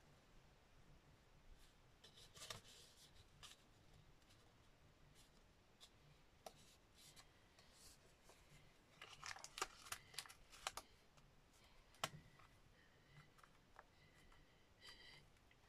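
Near silence broken by faint, scattered rustles and small clicks of card stock being handled and pressed flat on a cutting mat. There is a quick cluster of clicks about nine to eleven seconds in and one sharp tap about twelve seconds in.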